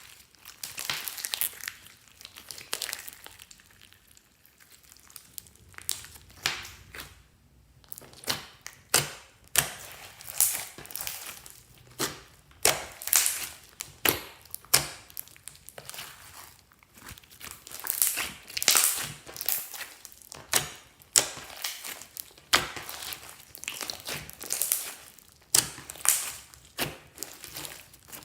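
Clear slime mixed with add-ins being squished, pressed and stretched by hand, giving irregular crackling clicks and squelches with a short lull partway through.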